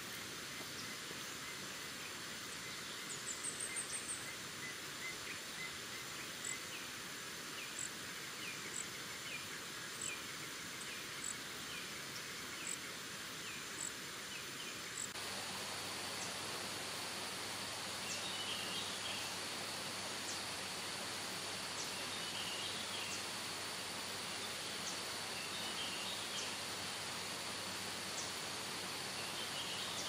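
Tropical forest ambience: short high chirps repeat about once a second over a steady hiss, with a brief trill near the start. From about halfway, a steady high insect drone joins, along with a bird chirp every two to three seconds.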